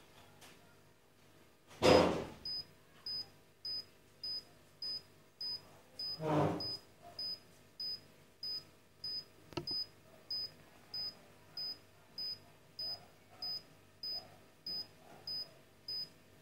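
Wrist digital blood pressure monitor beeping while it takes a reading: short high beeps at an even pace, a little under two a second. Two louder noisy bursts come about two and six seconds in, and a click shortly before ten seconds.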